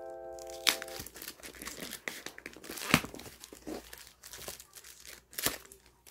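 Clear plastic protective wrap crinkling and crackling as hands pull it off a leather handbag's handle, with sharper crackles at about three seconds and again near the end. Background music stops about a second in.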